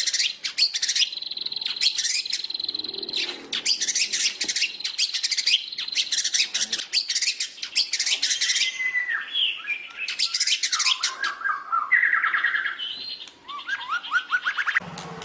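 White-rumped shama singing a fast, dense, chattering song packed with imitations of house sparrows' fighting calls. It holds a high steady note through the first few seconds and shifts to slurred, looping whistles in the second half.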